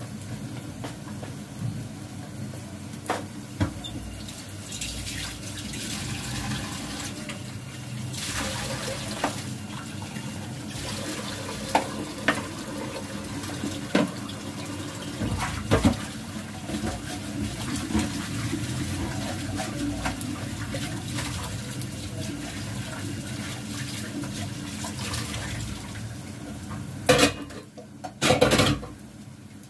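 Water running from a tap and splashing into a steel sink, with scattered short knocks and clinks, and two louder splashing bursts near the end.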